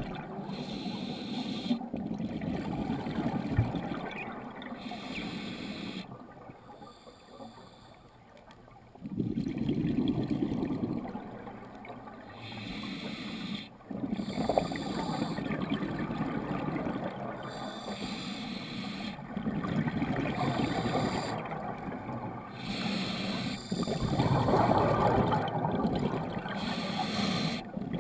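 Scuba regulator breathing underwater: bursts of exhaled bubbles every four to five seconds, with quieter inhalations between, heard through a GoPro's underwater housing.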